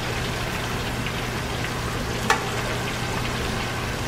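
Chicken deep-frying in a pot of canola oil: a steady bubbling sizzle, with pork chops pan-frying alongside. A single sharp clink about two seconds in, as metal tongs touch the pan.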